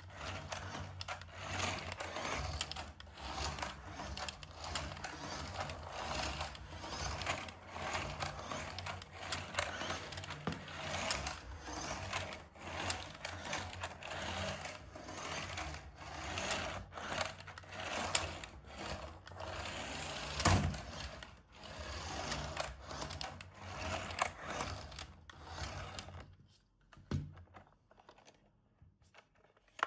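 Small electric motor and plastic gearbox of a toy RC car running in an irregular whir with clicks and scrapes, falling much quieter about 26 seconds in.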